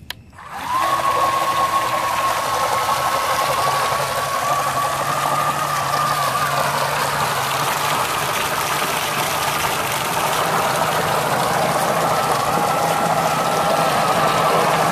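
Electric motor of a small RC snowblower spinning up about half a second in and running steadily, whining through its Delrin CNC-machined auger gearbox, its pitch creeping slowly higher. The auger is pumping water out of a tub and spraying it from the chute with a steady rushing hiss.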